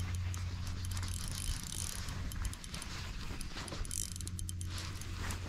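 Spinning fishing reel being cranked to bring in a hooked fish, its mechanism ticking steadily, with a low steady rumble underneath.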